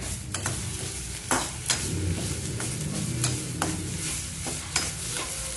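Indian borage, tulsi and betel leaves sizzling as they fry in a small pan on low flame. They are stirred, and the utensil clicks against the pan a dozen or so times at uneven intervals.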